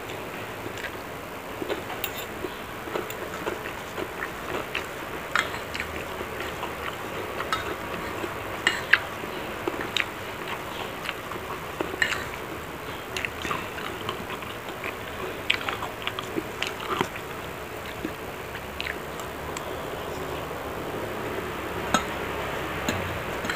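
Eating sounds: a metal spoon and fork clinking and scraping against a plate in irregular, sharp clicks, with chewing of fried rice and fried chicken between them.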